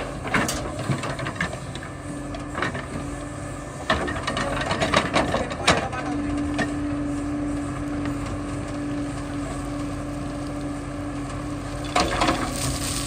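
JCB 3DX backhoe loader running, with a steady engine hum and, from about halfway through, a held drone. Several sharp knocks and clanks of the bucket and earth land through it.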